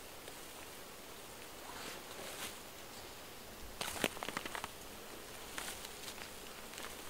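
Moss and forest-floor debris rustling and crackling as handfuls are torn up and laid over dead branches, with a cluster of dry crackles about four seconds in.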